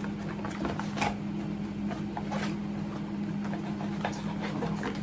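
Toy box packaging being handled and picked open with a needle: scattered crinkles and clicks, the sharpest about a second in, over a steady low hum.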